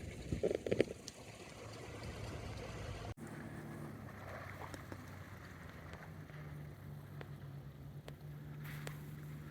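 Steady low drone of a distant engine, with a few knocks in the first second. After a break about three seconds in, the drone continues slightly higher in pitch.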